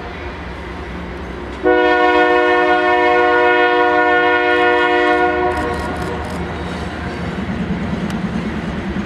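Diesel freight locomotive's air horn sounding one long chord of several notes, starting about two seconds in and cutting off after about four seconds. Under it and afterward the locomotives' engines and the train's wheels rumble past, with a rhythmic clatter in the last few seconds.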